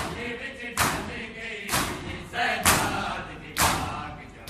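A crowd of men beating their chests with open palms (matam) in unison, one loud slap about once a second. Between the slaps a group chants a noha.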